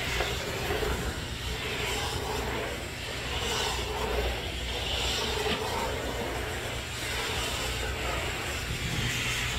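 Steady low mechanical hum with an airy hiss, swelling softly now and then.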